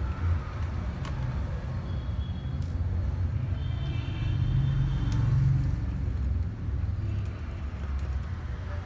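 Steady low background rumble, getting louder around the middle, with a few faint clicks.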